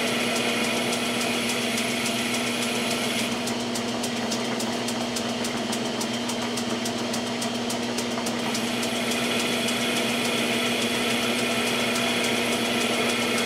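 Metal lathe running with a steady motor hum as a hand-fed tool bit turns down the muzzle end of a Remington 700 steel rifle barrel, cutting dry with a scraping hiss. For a few seconds in the middle the cutting hiss drops away, then it returns.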